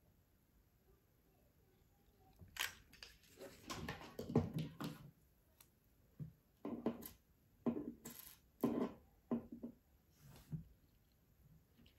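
Hands handling a twine-wrapped cardboard ornament and setting it down on a wooden tabletop: a string of soft, irregular knocks and rustles, starting about two and a half seconds in.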